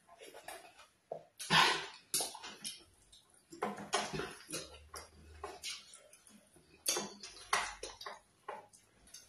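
Close-miked wet mouth sounds of eating black soup and starch by hand: irregular lip smacks, finger-licking and chewing, with a loud wet smack about one and a half seconds in.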